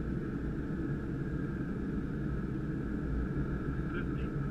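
Cockpit noise of a Gulfstream G550 business jet on short final: a steady low rumble of airflow and its twin Rolls-Royce BR710 turbofans, with a faint even higher hum above it.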